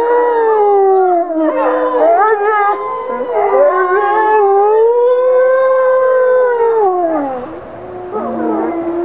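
Wolves howling in chorus: a white wolf's long howls rise and fall slowly, with other wolves' howls overlapping, most thickly between about one and a half and three seconds in. The main howl falls away about seven seconds in, and a new howl starts near the end.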